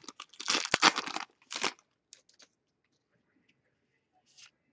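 Foil trading-card pack being torn open: about a second of crinkling, tearing wrapper, a second short rip, then a few faint ticks.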